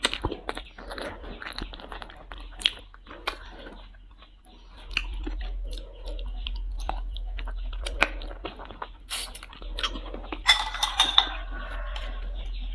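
Close-miked chewing and biting on soft-braised duck feet eaten by hand, with many short sharp mouth clicks and smacks. There is a dense run of them about ten and a half seconds in.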